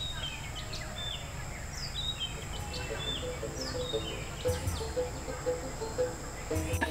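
Birds chirping over a steady outdoor hiss, with a steady high-pitched tone. About halfway in, soft background music with a repeating note and a few low beats comes in.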